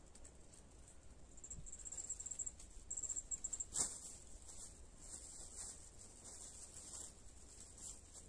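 Faint, high insect trilling in rapid pulses over a steady high hiss, with soft rustling as a cloth sack and fishing line are handled, and one sharp click about four seconds in.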